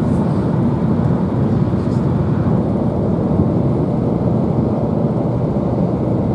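Car driving at highway speed, heard inside the cabin: a steady rumble of tyre, engine and wind noise.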